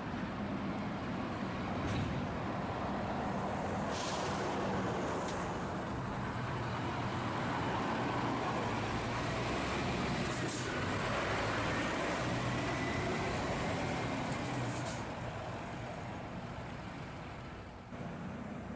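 A heavy lorry's diesel engine running at low revs, broken by several short hisses of air from its air brakes.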